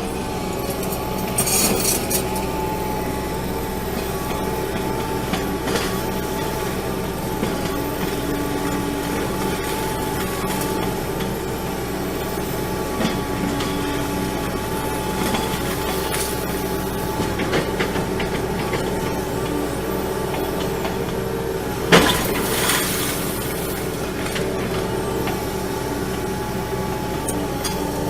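A heavy machine's engine running steadily, with occasional crunching and clanking impacts of material being broken or dropped. One crash about two-thirds of the way through is clearly the loudest.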